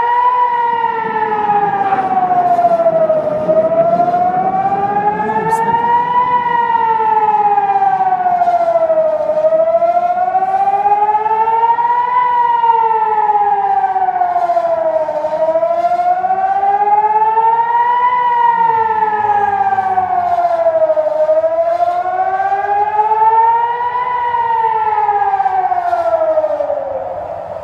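Civil-defence air-raid siren wailing, sounding a warning of incoming rockets. Its pitch rises and falls in slow cycles about six seconds long, and it begins to die away near the end.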